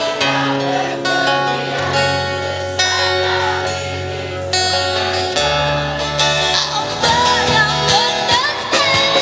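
Live street band playing a song on electric guitars and bass guitar, with a young girl singing the lead into a microphone.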